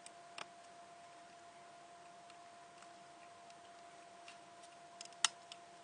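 A few small, sharp clicks of metal tweezers and tiny parts against a compact digital camera's body during reassembly, the loudest one near the end, over a faint steady hum.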